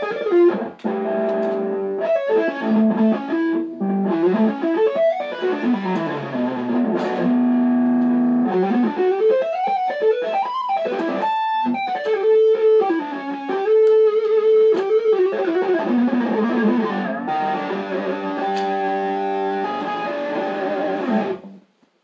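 Kiesel K-series electric guitar with Lithium pickups, played as an improvised melodic line of single notes with slides and bends and a few long held notes. It stops abruptly near the end.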